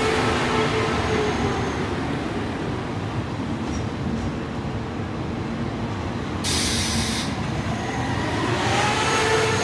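TER Grand Est Alstom Coradia Polyvalent (Régiolis) train running along the platform, a continuous rumble of wheels and running gear with a faint motor tone. A short hiss sounds about two-thirds of the way through, and a rising whine near the end as the rear cab goes by.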